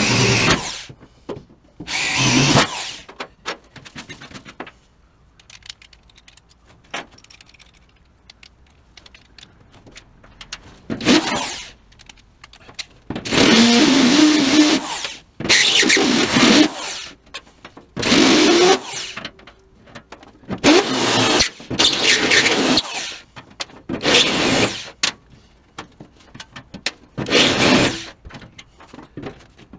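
A power drill run in short bursts of one to two seconds, about ten times with pauses between, drilling the mounting holes for a floor-mounted automatic transmission shifter.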